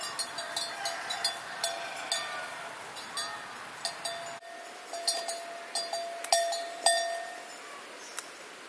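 Irregular metallic clinking, like a small hand bell or cowbell struck again and again, many strikes with a ringing tone that hangs on after them. The strikes are loudest a little past six seconds in.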